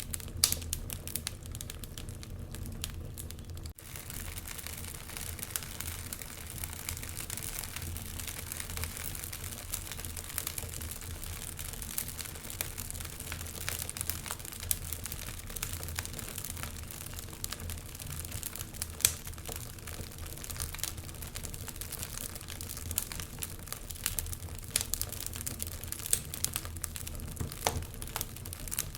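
Wood fire crackling in a fireplace: a dense run of small sharp pops and snaps over a steady low rumble, with a few louder pops now and then.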